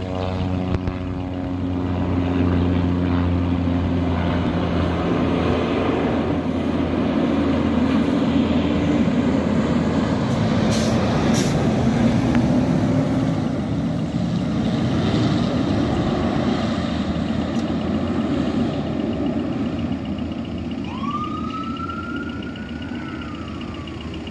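Fire engine's diesel engine pulling away and driving past close by, loud engine and tyre noise for most of the stretch. About three seconds before the end, as it moves off, its Whelen 295 electronic siren sounds one wail, rising and then falling in pitch.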